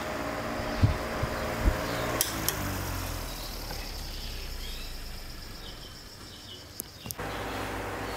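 Restored electric wall fan running with a steady motor hum and air noise. A few clicks come in the first couple of seconds, then the hum falls in pitch and fades as the fan is switched off and spins down. About seven seconds in the running fan's hum and air noise come back.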